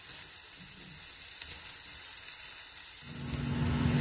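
Sliced onions sizzling in olive oil and butter in a stainless steel wok as they are stirred with a silicone spatula, with one sharp tap about a second and a half in. Near the end a low steady hum comes in and grows louder.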